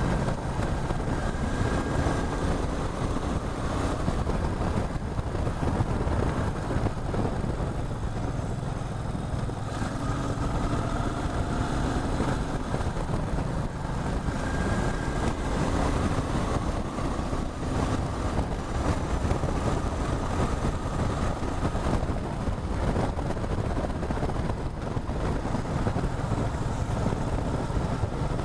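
Motorcycle engine running steadily under way, a continuous low drone with a slight drift in pitch.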